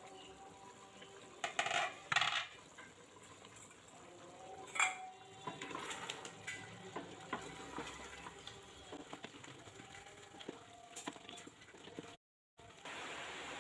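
A couple of short cookware clatters about two seconds in, then a wooden spatula stirring and scraping chunks of beef in gravy in a steel pot, with small irregular knocks against the pot.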